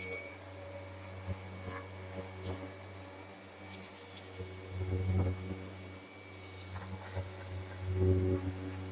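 A power sander's noise cuts off right at the start. After that, light intermittent rubbing and scraping on the plastic bumper over a steady low hum.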